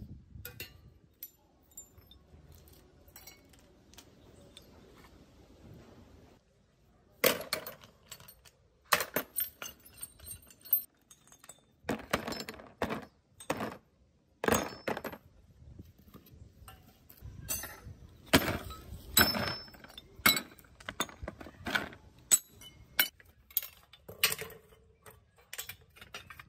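Rusty steel bicycle parts clinking and clanking as they are handled and set down: a quiet rustle at first, then from about seven seconds in a run of sharp, irregular metallic knocks and rattles.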